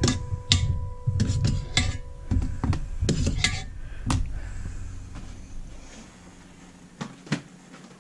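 Metal fork clinking and scraping against an enamelware roasting pan while cooked potatoes and carrots are dished out, a quick run of clinks and knocks that thins out, then two light knocks near the end.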